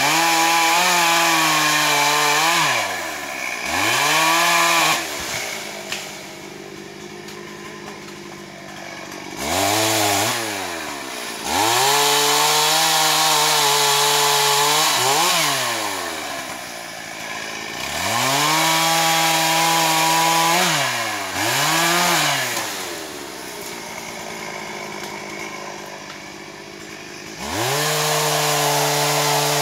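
Stihl MS440 two-stroke chainsaw bucking felled hornbeam into logs. The engine holds full throttle through each cut, with quick revs up and down and quieter idling between cuts. Long full-throttle cuts start near the beginning, about ten seconds in, about eighteen seconds in, and again near the end.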